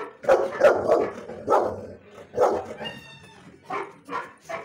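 A large black dog barking: two quick barks, then two single barks about a second apart, then two quieter barks near the end.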